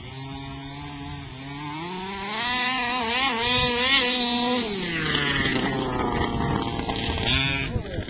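Gasoline remote-control car's small two-stroke engine running as the car drives across grass: its pitch rises about two seconds in, wavers while held at high revs, then drops about five seconds in, and it revs up and falls off again near the end.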